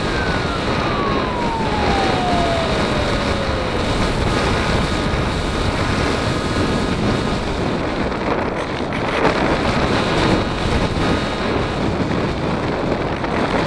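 Air rushing over the onboard camera microphone of a model FPV airplane gliding low to land. A single motor whine falls steadily in pitch over the first few seconds as the throttle is eased back.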